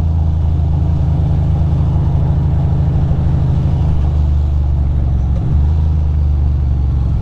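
Ducati Monster's V-twin engine running steadily at a cruise, heard from the rider's camera with road and wind noise over it; the note briefly changes about five seconds in.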